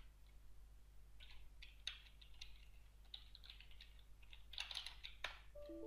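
Faint typing on a computer keyboard: scattered keystrokes, with a quick flurry about four and a half seconds in.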